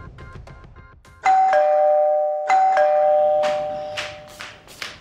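Two-tone electronic doorbell chime, ding-dong, rung twice in a row. Each time a higher note drops to a lower one, and both ring on as they fade.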